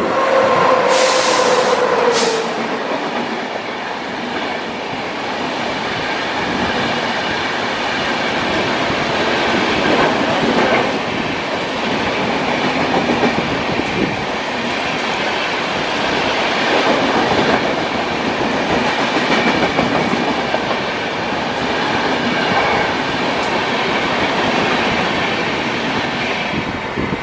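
Indian Railways WAP-7 electric locomotive sounds a horn blast, its pitch falling slightly as it passes, during the first two seconds. A long train of LHB passenger coaches then runs past at speed in a steady, continuous rush of wheel-on-rail noise.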